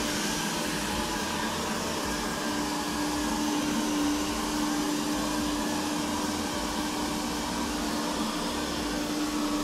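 360 S6 robot vacuum cleaner running on a carpet: its suction fan and brushes give a steady whir with a constant hum.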